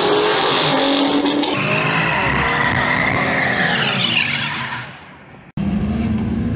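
Cars accelerating hard with engines revving, then tires squealing through a burnout as the engine runs, fading away. About five and a half seconds in, another engine starts up suddenly, running steadily.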